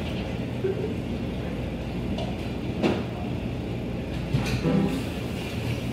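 Steady low rumble of room noise, with a few short knocks and thumps, two of them about three seconds and four and a half seconds in.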